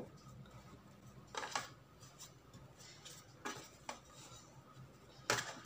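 A few faint knocks of a metal baking pan shifting against a table as dough is pressed into it by hand.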